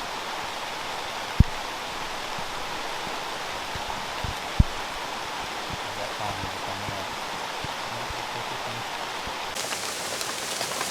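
Steady rain falling, an even hiss, with two dull knocks: one about a second and a half in and another about three seconds later.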